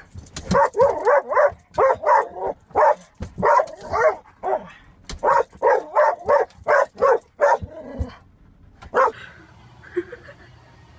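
A dog barking inside a car, a fast run of short, loud barks that stops about eight seconds in, followed by one more bark.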